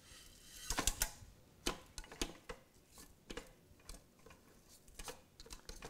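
Irregular light clicks and soft taps of raw steaks being lifted off a plate and set into the inner pot of an electric pressure cooker.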